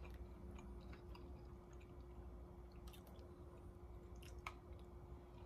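Faint drinking from a plastic water bottle: quiet mouth and swallowing sounds, with a few light clicks and crinkles of the bottle about three and four and a half seconds in, over a steady low hum.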